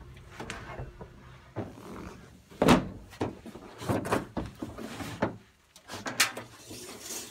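Several irregular knocks and thumps, the loudest about two and a half seconds in, from a person moving about on a plastic pickup bed liner and handling it.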